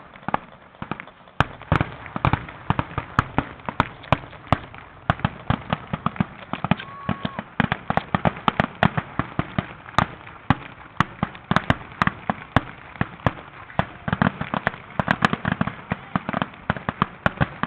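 Aerial firework shells bursting in rapid succession, several sharp bangs a second with no break: the dense barrage of a fireworks show's finale.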